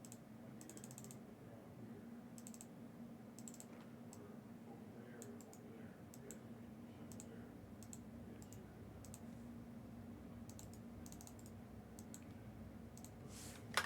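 Faint scattered clicks in small clusters over a low steady hum, then a short, much louder rustling noise near the end.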